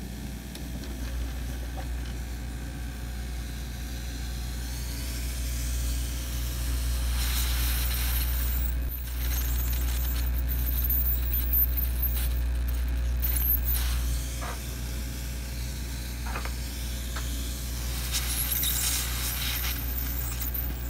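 Hot air rework station blowing on a surface-mount electrolytic capacitor to melt its solder: a steady rush of air with a low hum, growing louder and hissier from about seven seconds in and again near the end.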